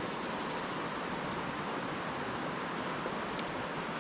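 Steady rush of a small mountain creek's water flowing over rocks.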